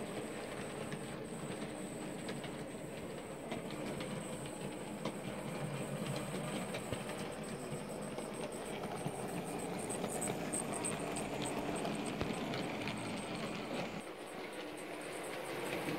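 Model trains running on a model railway layout: the steady whirr of the small locomotive motors and wheels rolling, with many light clicks as the wagons cross the rail joints.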